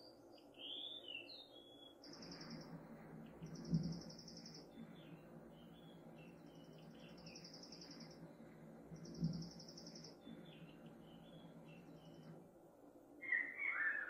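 Recorded bird song played back through a small amplified speaker, set off by a motion sensor: a few short whistled notes, then four buzzy trills a couple of seconds apart with soft chirps between. Two soft thumps come about four and nine seconds in.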